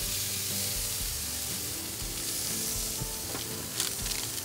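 Boneless leg of lamb sizzling steadily on a hot grill grate over direct heat. A couple of sharp clicks come near the end.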